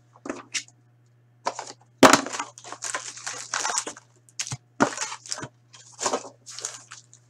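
A box of hockey card packs and its wrapping being torn open, with crackling and crinkling in irregular bursts, the loudest about two seconds in.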